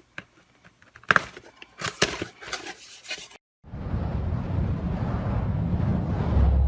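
A few light clicks and rustles of handling. Then, after a brief cut to silence, a steady rumbling noise that swells near the end.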